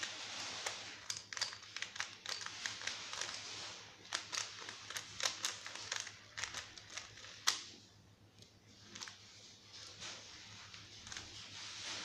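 Plastic 3x3 Rubik's cube being turned by hand: quick runs of clicking and clacking as the layers rotate, thinning out to fewer, quieter turns after about eight seconds.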